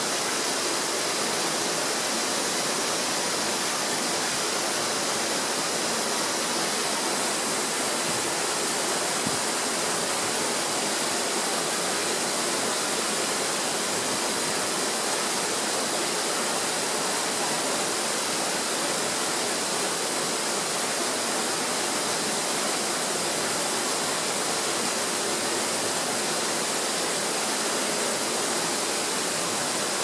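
A steady, unchanging rush of running water, like a waterfall or stream.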